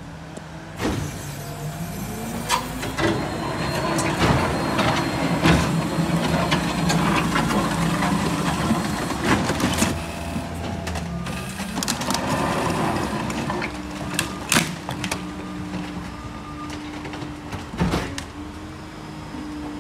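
Heavy vehicle engine revving up and down under load, with about half a dozen sharp clanks and knocks of material being handled. The engine note rises about a second and a half in, drops near the middle, then rises again and settles into a steady pitch near the end.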